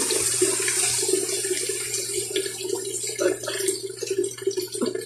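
Water running steadily into a basin, with a few faint ticks over it.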